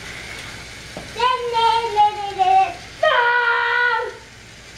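A child's voice singing or calling out in long wordless notes: one starting about a second in and sliding gently down, then a second, steadier one about three seconds in.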